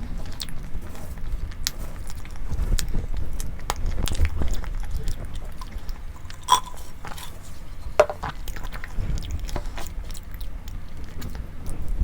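A person eating close to the microphone: chewing and biting, with many small wet clicks and two sharper ones about halfway through.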